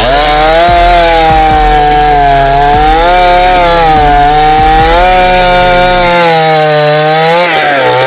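Chainsaw revving up and cutting through a felled coconut palm trunk, its engine held at high speed with slight dips in pitch under load, then dropping back down near the end.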